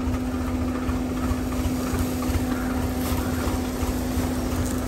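Vehicle engine idling steadily: a low rumble with a steady hum.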